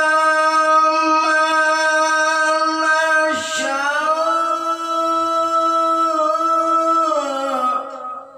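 A male qori's voice chanting in melismatic Arabic recitation style. He holds a long steady note, takes a quick breath about three seconds in, glides up into another long held note, and slides down in pitch near the end.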